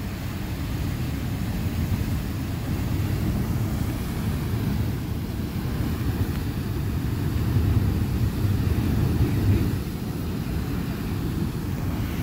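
Fan and Mortar Geysers erupting: a steady, loud rush of water and steam, deep and rumbling underneath with a lighter hiss on top, swelling a little about eight seconds in.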